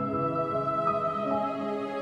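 Background music: a slow, soft ambient melody of held notes that change every half second or so.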